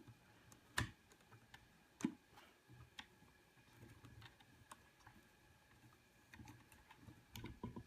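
Faint, irregular clicks and small taps of a screwdriver bit working at a screw on the metal internals of a Mac Mini G4. The loudest come about a second in and about two seconds in.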